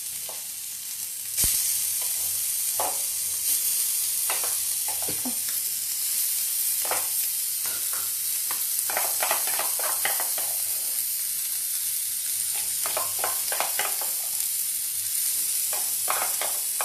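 Marinated chicken pieces sizzling as they are laid one by one into hot mustard oil on a tawa to shallow-fry. The steady hissing sizzle jumps louder about a second and a half in, with scattered short pops and clicks as more pieces go in.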